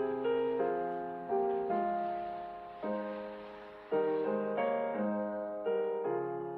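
Slow, gentle piano music: single notes and chords struck about every half second to a second, each fading before the next.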